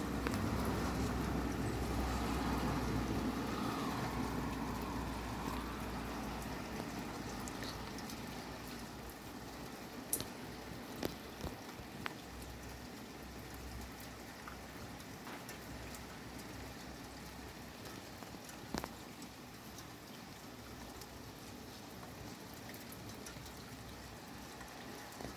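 Heavy rain falling steadily, with the sharper taps of single drops dripping now and then. A low rumble under the rain fades away over the first several seconds.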